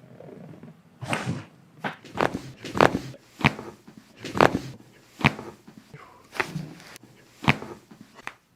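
Chiropractic adjustment: a series of about a dozen sharp pops and thuds, irregularly spaced roughly a second apart, as the body is worked on.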